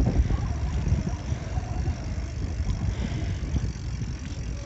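Low, fluctuating rumble of a bicycle rolling over brick pavers, with wind buffeting the microphone.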